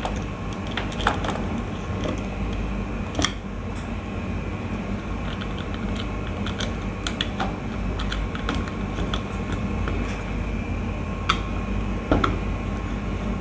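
Scattered small clicks and scrapes of a screwdriver turning the terminal screws of a magnetic contactor as a wire is fastened into its terminal, over a steady background hum.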